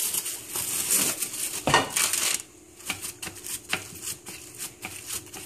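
Plastic wrap crinkling and rustling as hands spread it over ground chicken and press it flat on a parchment-lined metal baking sheet, with scattered light clicks and knocks.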